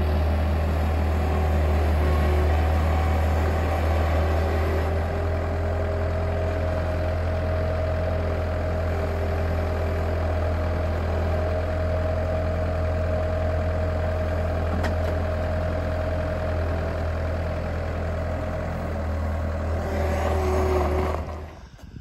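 Bobcat S185 skid steer's diesel engine running steadily while it carries a heavy beam on its forks. The sound cuts off just before the end.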